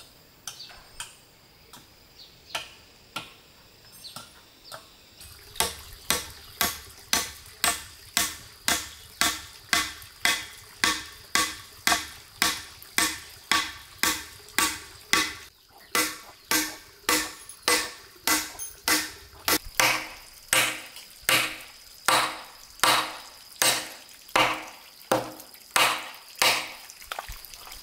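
Rhythmic chopping with a blade, about two strikes a second. It begins after a few scattered knocks and breaks off briefly midway.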